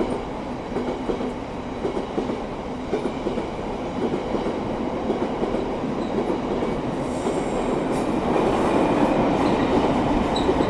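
Freight train of old EWS tank wagons rolling past, with a steady rumble and clatter of wagon wheels on the rails that grows a little louder toward the end.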